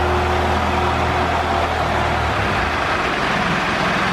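A big old diesel engine being cranked over by its starter without firing, a loud steady mechanical noise; its low hum drops away a little over two seconds in.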